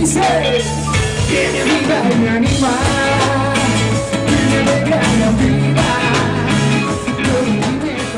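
Live band music: a man singing while strumming an acoustic guitar, backed by the band.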